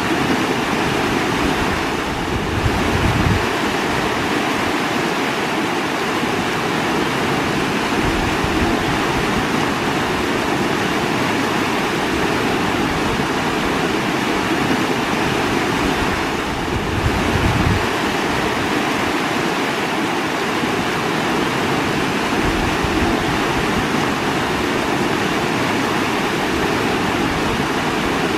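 Running water flowing steadily as a dense, even rush, with a brief dip and low surge that recurs about every fourteen seconds.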